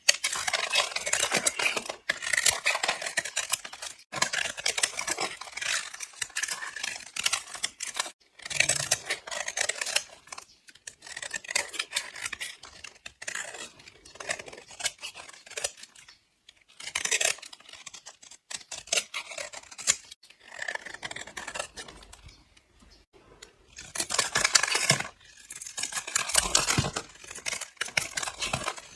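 Blade slicing through dry bars of soap, with a crisp, crunchy crackle. The strokes come one after another, each lasting from a second to a few seconds, with short pauses between.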